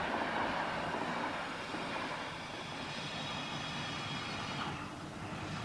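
A train running: a steady rumble and hiss without a clear beat, dropping a little near the end.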